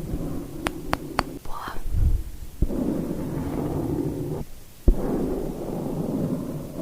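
Something rubbing and sweeping directly on the microphone, a low muffled rustle in stretches with brief pauses. A few sharp clicks come about a second in, and there are single soft thumps against the mic.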